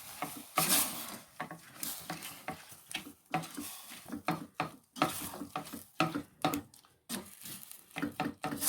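A spoon stirring and scraping chopped citrus fruit and sugar in a cooking pot, in many short, irregular strokes.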